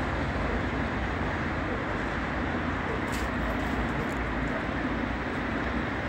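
Steady urban road traffic: a dense mix of car, truck and motorcycle engines and tyre noise from a busy multi-lane avenue, with a brief high hiss about three seconds in.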